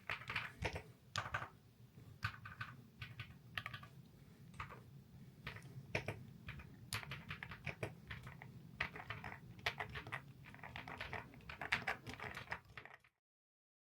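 Typing on an Epomaker Galaxy70 aluminium gasket-mount mechanical keyboard with Petal switches and its stock keycaps: irregular runs of key clacks. The sound cuts off abruptly about a second before the end.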